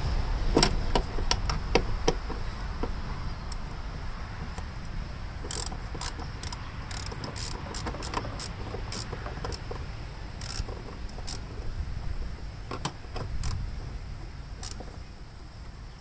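Hand ratchet clicking and metal tools clinking as a fitting in the engine bay is worked loose. The clicks are sharp and scattered: several in the first two seconds, quick runs between about five and eleven seconds in, and a few more near the end, over a steady low rumble.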